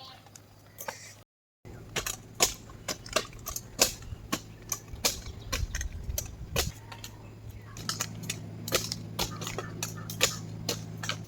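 A run of sharp, irregular clicks and knocks, a few a second, over a low steady hum.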